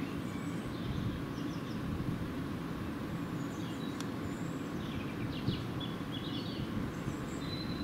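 Steady low distant rumble, with small birds chirping now and then, more often in the second half.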